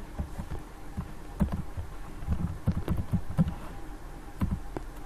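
Computer keyboard being typed on: irregular keystrokes in short runs with brief pauses between.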